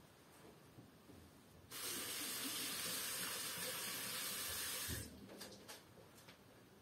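A steady rushing hiss that starts abruptly about two seconds in, holds level for about three seconds and cuts off sharply.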